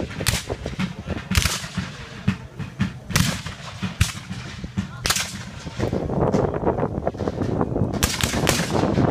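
Muzzle-loading rifle muskets firing black-powder blanks in a ragged volley: about seven loud, sharp shots at uneven intervals, two of them close together near the end. A steady rushing noise builds under the shots for the last few seconds.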